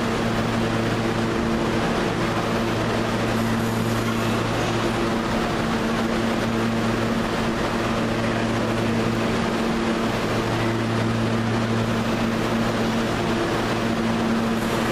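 New York City subway train standing at a station platform, giving a steady hum with several constant low tones over a continuous rumble.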